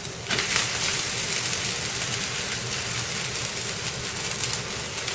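Sabudana paratha frying in oil on a hot tawa, a steady sizzle. It has just been turned over with a spatula, and the sizzle dips briefly, then picks up again a moment in.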